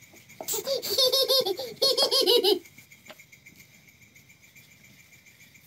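Children laughing hard in quick repeated ha-ha bursts for about two seconds, then it goes quiet.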